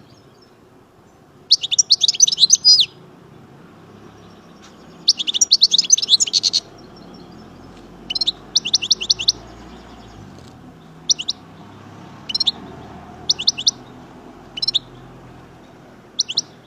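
European goldfinch singing: two long bursts of rapid, high twittering, then a string of short one- to three-note chirps spaced a second or two apart.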